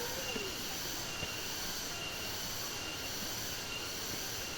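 Steady rush of a waterfall with cicadas (garengpung) droning in the surrounding forest, and a faint short chirp repeating about once a second.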